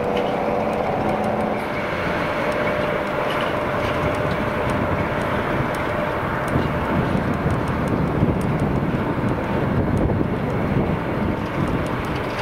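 TEM14 twin-diesel shunting locomotive running as it moves a container train, a steady dense rumble of engine and rolling wheels with faint clicks. A couple of steady tones in the sound fade out in the first two seconds.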